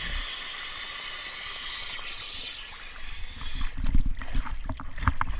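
Water splashing and hissing close to a half-submerged camera as a scuba diver heaves himself out onto a boat launch ramp. From about three and a half seconds in, a run of dull knocks and thumps, loudest near four seconds, as the diver's gear and scuba tank bump and scrape onto the ramp.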